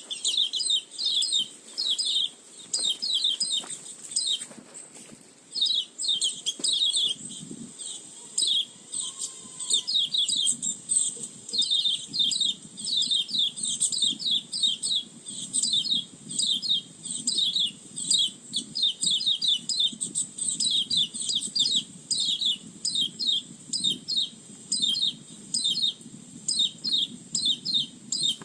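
Pleci (white-eye) lure call: a bird chattering in fast runs of short, high, falling notes, repeated over and over with only brief gaps, as used to attract wild white-eyes. A steady high hiss sits underneath.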